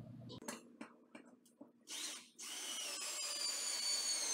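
Cordless drill driving screws into a drywall ceiling panel: a few clicks and a short burst of the motor, then a steady whine for about two seconds that falls slightly in pitch.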